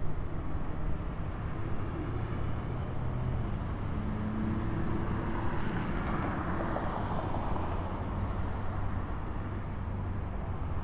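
Distant jet engines of a Boeing 737-900ER (CFM56-7B turbofans) running at low power as the airliner taxis, a steady rumble that swells briefly about halfway through.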